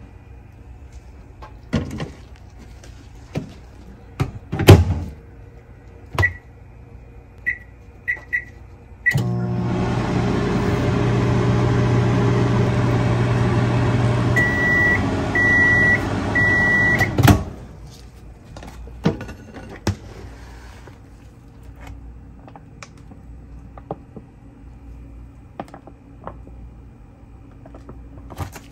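Microwave oven in use: a few knocks and a loud thump, short keypad beeps as it is set, then a steady hum for about eight seconds. It ends with three beeps for the end of the cycle and a clunk of the door.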